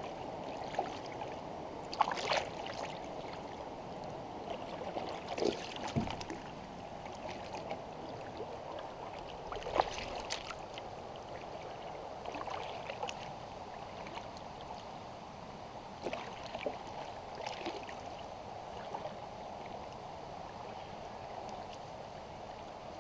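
Canoe paddle strokes: soft splashes and drips every few seconds, over a steady rush of moving water.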